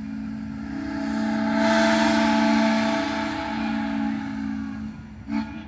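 Steam locomotive whistle blowing one long blast, a steady chord of several tones with a rush of steam hiss that swells in the middle, then a short toot near the end.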